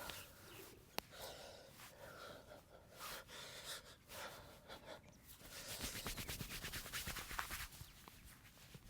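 Hands massaging: faint rubbing and brushing strokes, a single sharp click about a second in, then a fast run of light pats from a little past five seconds until near the end.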